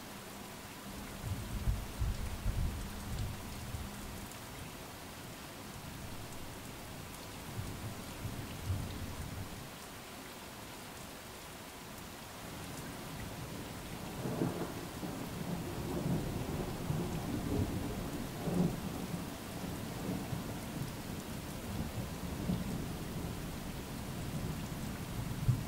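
Steady rain falling, with thunder rumbling: a short roll about a second in, then a longer, louder rolling rumble from about halfway through that lasts almost to the end.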